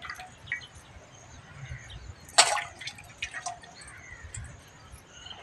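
Water splashing and dripping as ripe snap melons are washed by hand in a steel bowl, with a few sharp splashes, the loudest about halfway through.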